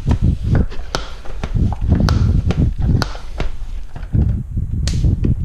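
Bicycle pump being worked with quick strokes to inflate a Schrader-valve inner tube: a rapid run of dull thumps, about two a second, with light clicks.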